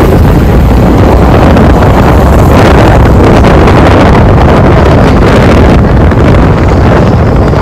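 Wind buffeting the microphone with a loud, steady rumble, as when recording from a moving vehicle, with road traffic beneath.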